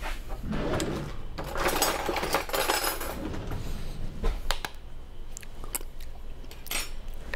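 Kitchen handling noises: cloth rustling for the first few seconds, then scattered light clicks and taps as a spoon is taken up and dipped into a glass bowl of cocktail sauce to taste it.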